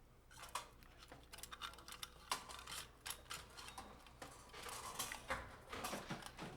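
Faint, scattered clicks and light taps of hand tools and metal parts being worked on a recessed light fixture's housing.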